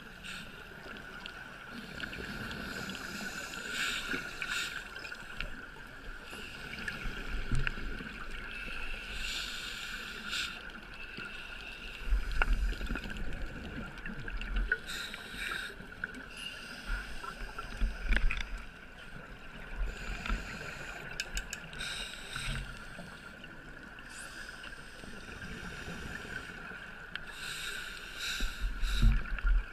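A scuba diver breathing through a regulator underwater: hissing inhalations and rumbling bursts of exhaled bubbles every few seconds, the loudest burst near the end.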